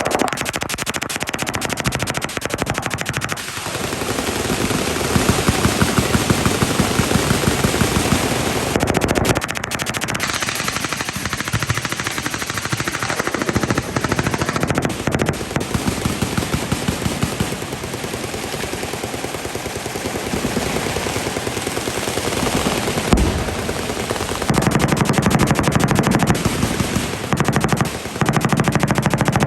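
Machine guns firing full-auto: continuous, overlapping strings of rapid shots with hardly a pause. The fire is heaviest for a few seconds about five seconds in, and again near the end.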